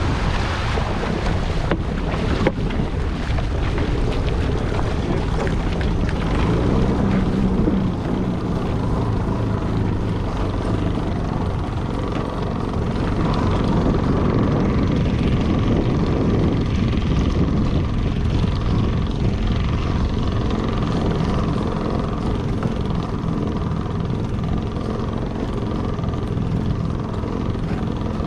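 A small boat's motor running steadily, with wind noise on the microphone in the first few seconds.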